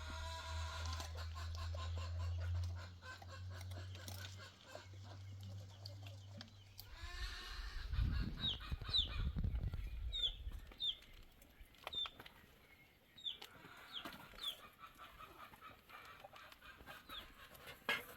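Chickens clucking, with a series of short high peeps in the middle. A low steady hum runs underneath for the first several seconds, and a low rumble comes about eight seconds in.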